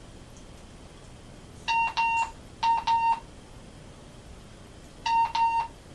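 Wouxun KG-UV6D handheld ham radio beeping as its buttons are pressed: short, steady electronic beeps, two pairs about two and three seconds in, then a quick run of three near the end.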